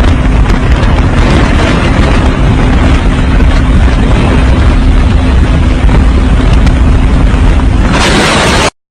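A very loud, distorted rushing roar with a steady low hum under it, starting abruptly and cutting off suddenly near the end.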